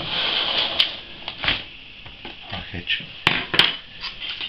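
Plastic packaging crinkling and a taped plastic shipping cup knocking against a plastic tub as they are handled, with a scatter of sharp clicks and knocks; the two loudest clicks come close together about three seconds in.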